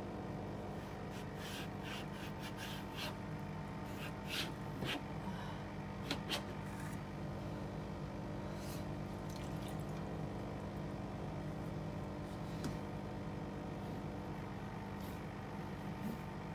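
Wet cleaning on the fridge: a rag-wrapped toothbrush scrubbing and wiping, with scattered small clicks and taps, over a steady hum.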